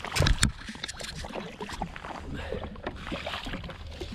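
Sea water slapping and lapping against a drifting jet ski's hull, with a steady rumble of wind and water and scattered small knocks of fishing gear being handled. A few loud sharp knocks come just after the start.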